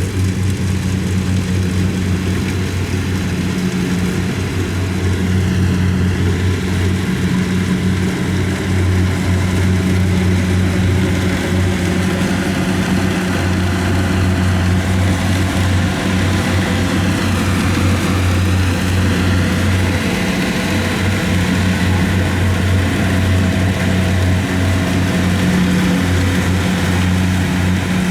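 Kubota DC-70 combine harvester running steadily, a deep engine hum with a higher whine that dips and rises twice.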